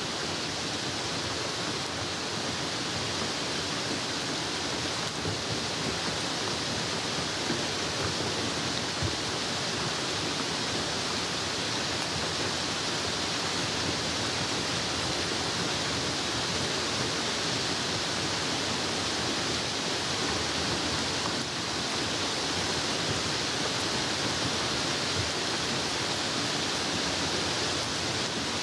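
Steady rain falling, an even dense hiss with faint scattered patters.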